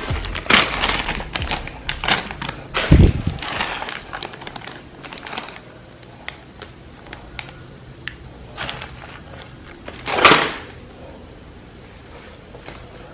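Crinkling and crackling of instant-noodle packaging being handled, with scattered clicks. The handling is dense at first and then thins out, with one louder rustle about ten seconds in.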